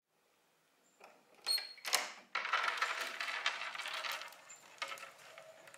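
A door's metal lever handle and latch clicking, with the key hanging in the lock jingling, about a second and a half in; then a couple of seconds of rushing noise as the door swings open, fading near the end.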